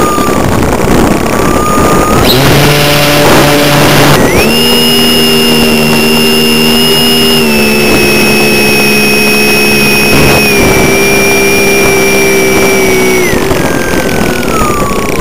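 Skybug RC plane's motor and propeller heard from a camera under the wing, with wind rush: a steady high whine jumps up as the throttle opens about four seconds in, holds with small steps down, then falls steadily near the end as the motor is throttled back.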